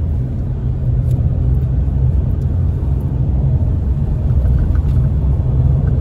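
Steady low rumble of a car driving on a paved road, heard from inside the cabin: engine and tyre noise with no change in pace.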